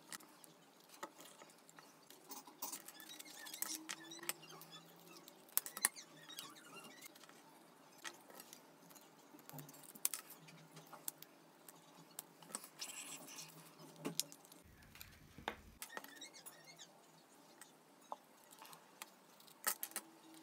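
Scissors snipping thin wooden popsicle sticks, with scattered sharp clicks and taps as the small wooden pieces are handled on a tabletop.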